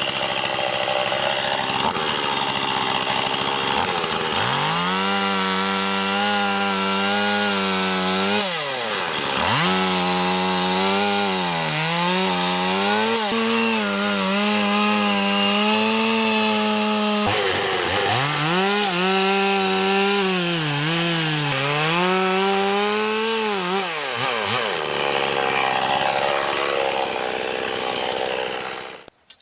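Two-stroke chainsaw cutting into wood, its engine running at high revs and dropping in pitch, then recovering, several times as the chain takes load in the cut.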